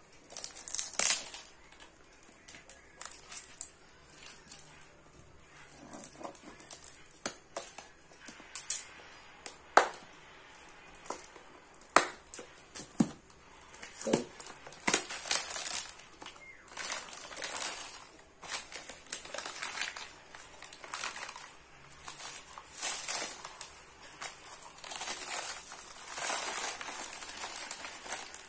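Scissors snipping through a parcel's packing tape and cardboard, then plastic wrap and newspaper packing crinkling and rustling as the parcel is unwrapped by hand. Irregular sharp snips and rustles, busier and more continuous in the second half.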